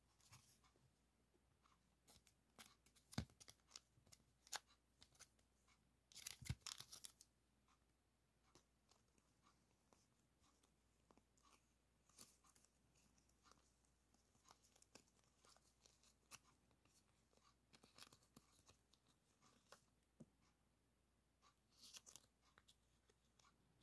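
Handling of clear plastic die-cut flake stickers and sticker papers: soft crinkling and rustling with scattered light taps and clicks, a denser crinkle about six seconds in and again near the end.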